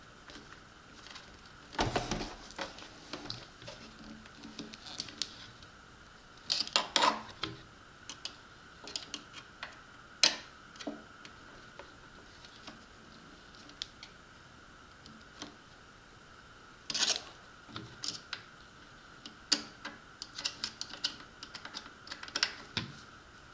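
Scattered clicks and light rattles of a small screwdriver working the screws of an RC jet boat's plastic jet-drive nozzle, with a quick run of ticks near the end.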